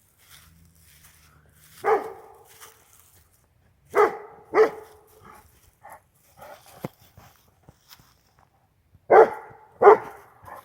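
Akbash guardian dog barking: a single bark, then a pair of barks, then another pair a few seconds later.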